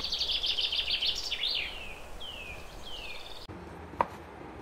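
Small songbirds chirping: a fast run of high chirps, then a few short whistled notes sliding downward. The birdsong cuts off about three and a half seconds in, and a single knock of a knife on a wooden cutting board follows.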